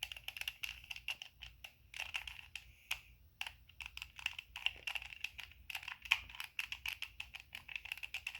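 Plastic 2x2 Rubik's cube being twisted over and over through the same sequence of turns, its layers clicking and clacking in quick, uneven runs with a couple of brief pauses.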